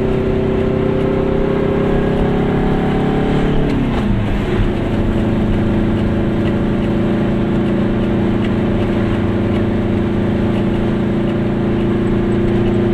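Goggomobil's small air-cooled two-stroke twin-cylinder engine running under way, heard from inside the cabin. Its pitch climbs gently, drops about four seconds in, then holds steady at cruising speed.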